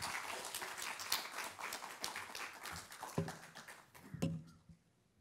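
Audience applauding, the clapping thinning out and fading away over about four seconds. Near the end come a couple of dull thumps, then near silence.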